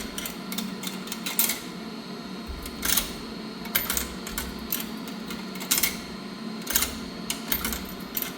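Irregular sharp metallic clicks and knocks as quarters are tried in a coin-operated dryer's coin slot that will not take them, over a steady low hum.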